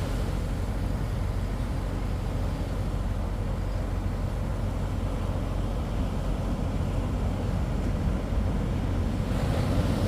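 Engine running steadily at low revs with a low hum, over a wash of surf that grows louder about nine seconds in.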